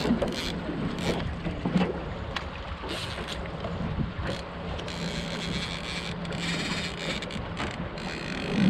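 Wind buffeting the microphone over a steady low hum from the boat's outboard motor, with a few scattered sharp knocks.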